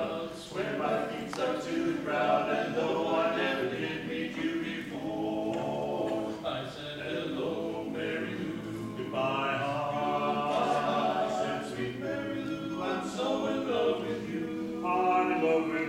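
A small group of men singing together in harmony, holding each note for a second or two.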